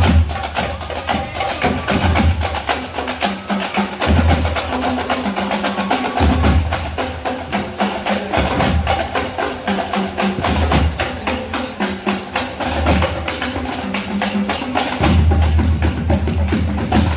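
Marching band playing: fast, steady drum strokes over low sustained bass notes that change every second or two.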